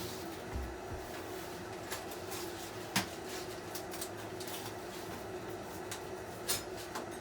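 Rummaging through things while searching: a few scattered knocks and clicks of objects being moved and set down, over a steady low hum.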